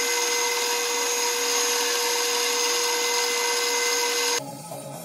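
Bench drill press running steadily, its bit boring into a carved wooden lure blank, with a constant hum and a high whine. It cuts off sharply about four seconds in.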